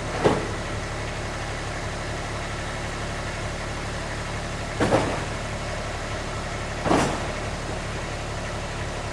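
A vehicle engine running steadily, with three brief whooshing swells over it, the loudest about five and seven seconds in.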